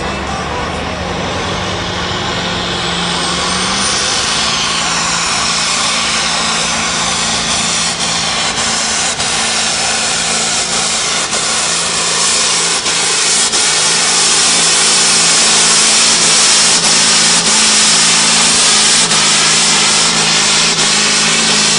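Diesel pulling tractor running flat out as it drags a weight-transfer sled down the track, a high whine rising over the first few seconds. The engine noise grows louder as the tractor comes close.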